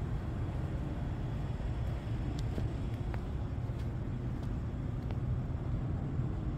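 Steady low rumble of distant city road traffic, with a few faint short clicks in the middle.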